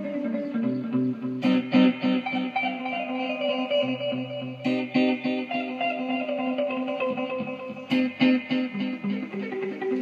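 Instrumental background music with guitar and a steady repeating beat, with a sharp accent about every three seconds.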